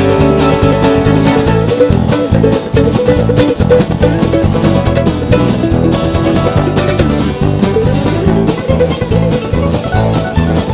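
Background bluegrass music: an instrumental break with banjo and guitar playing.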